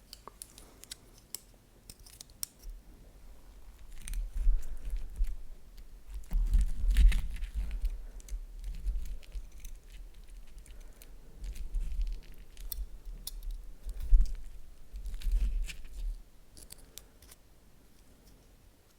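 Close-miked handling of food and utensils: scattered sharp clicks and snips with crinkling, over dull low thuds that come in bouts through the middle.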